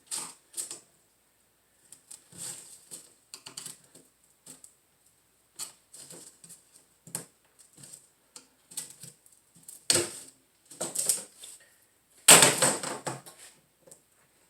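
A screwdriver scraping and clicking in a window screen frame's groove, prying at old rubber spline that is stuck fast: irregular short scrapes, the loudest near the end.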